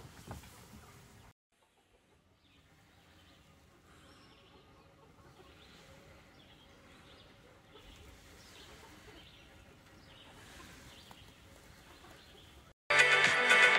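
Faint bird calls over quiet background noise, then loud music starts abruptly near the end.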